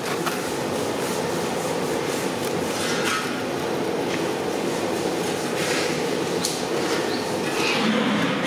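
Steady roar of a gas burner under a large aluminium cooking pot, with a few light taps and rustles as spice powder is shaken from paper packets into the pot.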